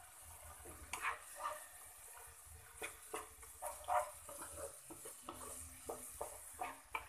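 Wooden spatula scraping and knocking against a nonstick wok as minced chicken breast is stirred, in quick uneven strokes starting about a second in.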